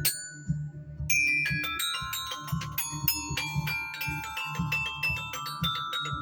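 Tuned mallet percussion played fast: quick strikes on bright, ringing bars, many notes a second and sustaining over one another, over a steady low thudding beat. There is a brief lull about half a second in before the playing picks up again.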